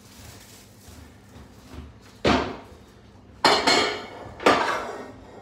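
Kitchen canisters being set down and shifted on a countertop: three sharp knocks with clattering tails, about a second apart, after a couple of seconds of quiet.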